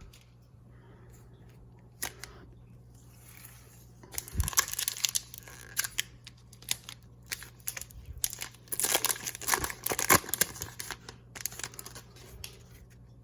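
Foil booster pack wrapper being torn open and crinkled, a run of crackling tearing sounds from about four seconds in, with a soft thump as it starts.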